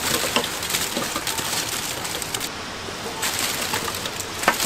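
Crisp fried chicken pieces tumbling from a wire mesh strainer into a steel bowl of seasoned chicken, a dense crackle of many small knocks and rustles. It eases briefly a little past the middle.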